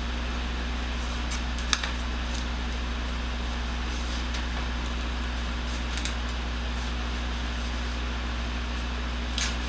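Steady low mechanical hum, like a running shop fan, with a few light clicks and knocks; the sharpest comes a little under two seconds in.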